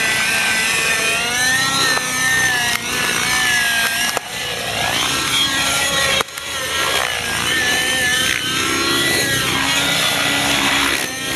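Radio-controlled model helicopter flying aerobatic freestyle manoeuvres: its motor and rotor whine, the pitch sweeping up and down continually as the throttle and the helicopter's distance change.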